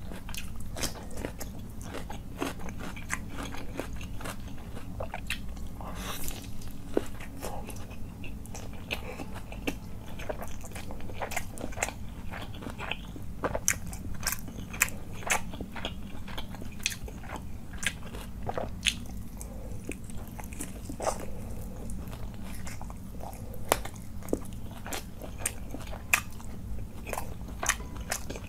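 Close-miked eating sounds of a person eating by hand: continual biting, chewing and crunching, with many sharp wet clicks of the mouth at irregular intervals.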